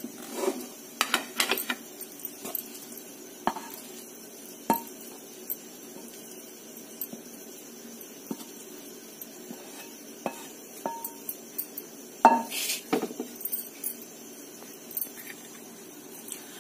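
A metal spoon knocking and scraping against a pan and a plate as halwa is served out: scattered separate clinks, some with a short ringing tone, bunched about a second in and again near the end.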